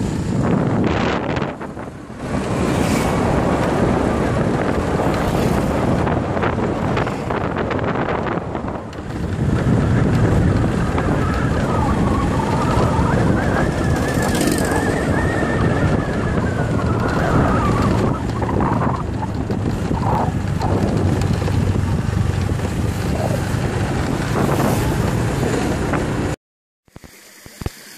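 Wind buffeting the microphone over the running noise of a moving vehicle, as heard while riding along a road. The sound cuts off abruptly near the end.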